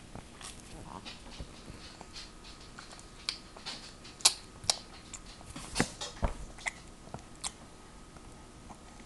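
A seven-month-old baby eating pasta casserole with her fingers: a string of short wet smacks, squishes and clicks from her mouth and sticky hand, the loudest a little past four seconds in and again near six seconds.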